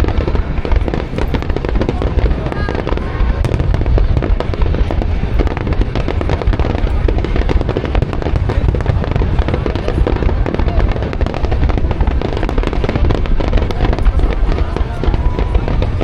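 Fireworks display going off in a dense, unbroken barrage of booms and crackles.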